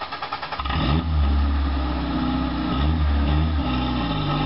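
Suzuki Samurai rock crawler's engine revving under load as it crawls over boulders, the revs rising and falling several times. Before it picks up, about half a second in, there is a fainter fast ticking.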